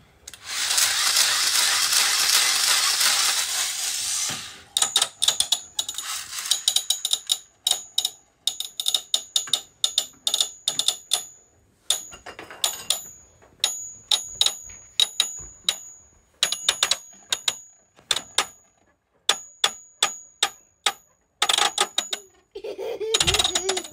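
Toy spinning top launched into a plastic stadium: a loud whirring for about four seconds, then rapid, irregular clicking and clattering against the plastic as it keeps spinning, with a faint high ringing over it.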